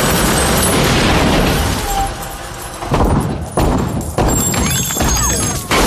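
Film-soundtrack gunfight: heavy machine-gun fire and impacts form a dense, continuous din for about two seconds, then thin out to a few separate heavy hits, over background music.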